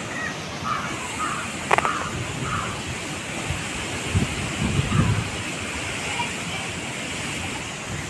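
Storm wind of about 40 km/h rushing steadily through trees, with gusts buffeting the microphone in low thumps around the middle. A bird calls four times in the first few seconds.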